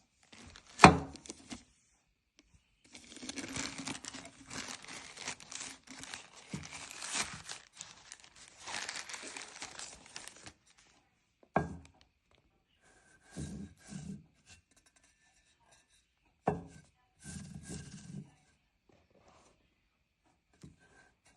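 Gift packaging being torn open and crinkled in several stretches, with a few sharp knocks in between, the loudest about a second in.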